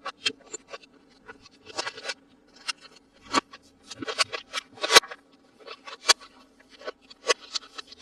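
Toy packaging being handled and opened by hand: irregular short clicks, snips and crinkles of plastic and cardboard, the loudest snap about five seconds in, over a faint steady low hum.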